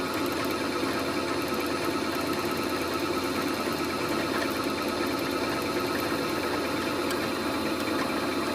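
Brother electric sewing machine running steadily on the foot pedal, winding thread onto the bobbin.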